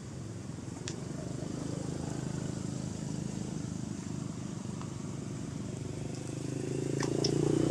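A motor vehicle engine running steadily, growing louder near the end.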